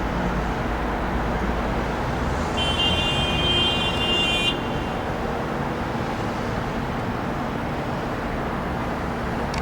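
Steady rumble of vehicle traffic or a distant engine, with a thin high-pitched tone held for about two seconds starting about two and a half seconds in.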